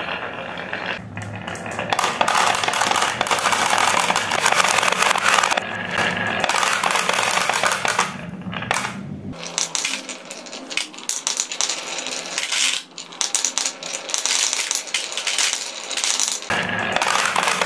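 Dozens of marbles rolling and clattering down wooden wave-slope tracks and rattling against a plastic toy dump truck's bed: a dense, continuous patter of small clicks.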